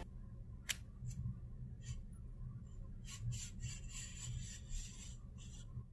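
A blade slitting the seal along the edge of a small cardboard product box: scratchy scraping strokes with a few sharp clicks, the densest scraping about three seconds in.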